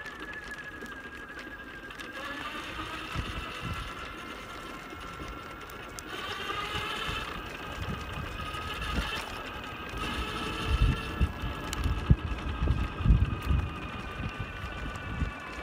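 Electric drive motor of a wheelchair trike whining steadily as it rides along, its pitch shifting with speed and rising about six seconds in. Low rumbling thumps come in over the second half.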